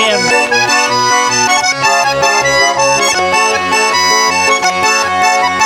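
Instrumental break of a song: an accordion playing a melody over a steady, regular bass beat.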